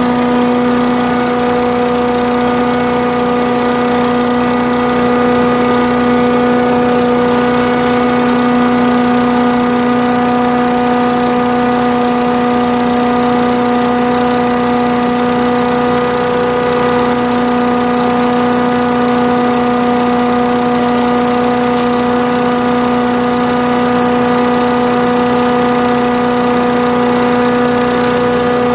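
Craftsman 5-horsepower chipper vac running steadily under its own engine, its vacuum fan spinning. It holds one unchanging pitch throughout.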